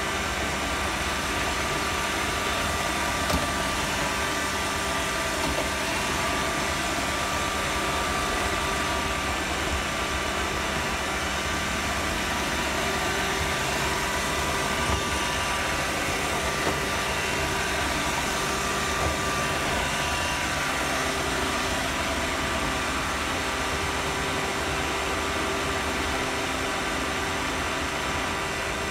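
Roomba robot vacuum running, heard from a phone riding on top of it: a steady whir from its motor and brushes with several steady tones, and a few brief knocks.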